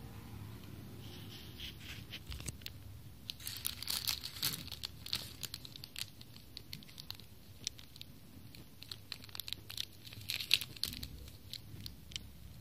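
Thin clear plastic bag of foam earplugs crinkling and crackling as it is squeezed and handled, in irregular bursts that are busiest about four seconds in and again around ten seconds in.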